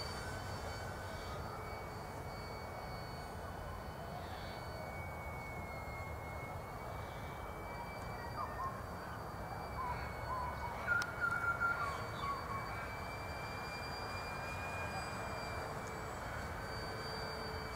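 Radio-controlled P-51 Mustang model plane flying at a distance: a steady faint motor drone with a thin whine that shifts slightly in pitch, over low outdoor rumble. A few short chirps come near the middle.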